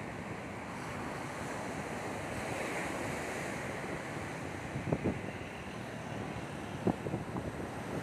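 Small waves breaking and washing up a sandy beach in a steady surf hiss, with wind buffeting the microphone in a few short bumps, about five and seven seconds in.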